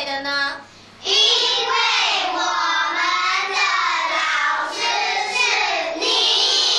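A group of children singing together in unison, starting about a second in and held steadily.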